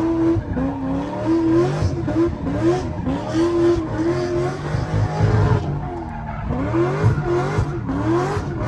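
Drift car's engine revving up and down again and again as it slides, with tyres skidding. The engine backs off briefly about six seconds in, then climbs again.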